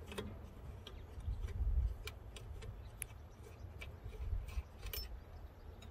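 Scattered light clicks and ticks from hands twisting and pulling a stuck air filter element out of a tractor engine's air cleaner housing, over a low rumble.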